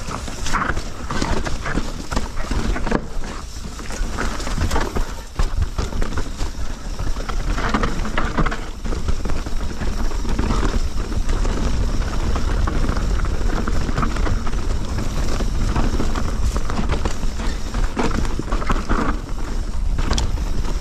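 Mountain bike rattling and clattering over a rough dirt trail, with many small knocks and the tyres rolling on the ground. Wind buffets the camera microphone with a constant low rumble.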